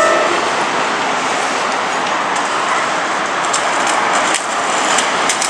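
Level-crossing warning bell on Keikyu's Shinagawa crossing ringing its repeating electronic tone, which stops just after the start, leaving a steady rushing noise of passing vehicles with a few sharp clicks near the end.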